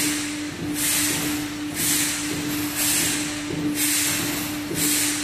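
High-pressure hydrostatic test rig's pump unit running during a pressure hold near 10,000 PSI: a steady hum with a hiss that pulses about once a second.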